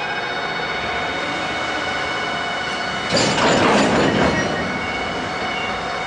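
JNR DD51 diesel-hydraulic locomotive running at low speed while shunting cement tank wagons, a steady engine sound laced with thin high squealing tones from the moving train. About three seconds in, a loud rushing, clattering noise lasts for about a second, then fades back to the steady running sound.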